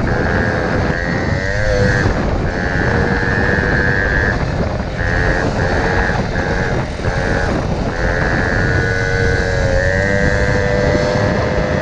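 Piaggio Ciao moped's 49 cc two-stroke single-cylinder engine running under way, its note wavering a little, with a higher whine that cuts in and out many times. Wind rumbles on the helmet microphone underneath.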